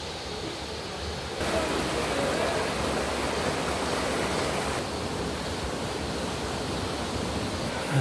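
Mountain stream rushing over rocks and small rapids: a steady rush of water, louder from about a second and a half in.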